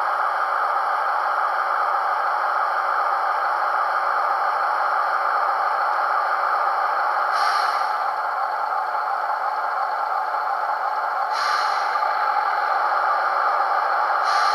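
Small speaker of an MTB-Model ST43 model locomotive's sound decoder playing a steady diesel engine sound, with three brief hisses: about halfway through, a few seconds later, and at the very end.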